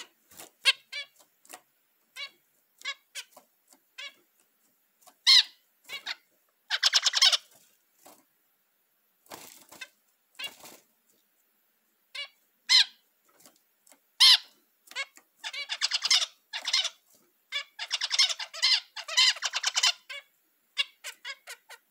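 Caged zebra finches calling with short, nasal chirps, broken by longer buzzy song phrases about 7 seconds in and again from about 15 to 20 seconds: the male's courtship song.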